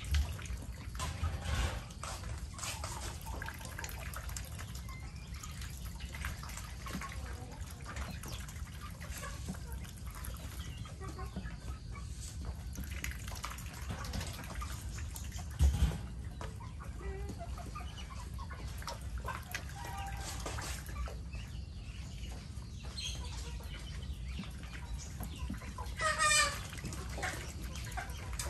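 Chickens clucking among a flock of Muscovy ducks, over a steady patter of dripping water, with one longer pitched call near the end. A few sudden dull thumps come shortly after the start and about halfway through.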